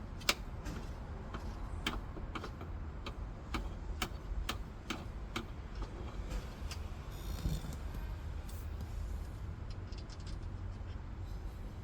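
Irregular sharp clicks and taps of hands and tools working dashboard parts loose, a few per second at most, over a steady low hum.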